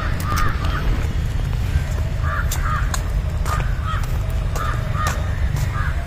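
Crows cawing repeatedly in short runs of two or three calls, over a steady low rumble.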